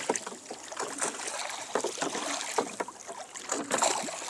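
Water splashing and lapping around a small wooden rowing boat, with irregular light knocks and drips.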